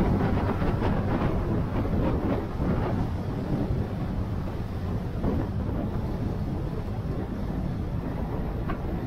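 Wind rushing over the microphone of a moving motorcycle, with a steady low engine and road rumble underneath.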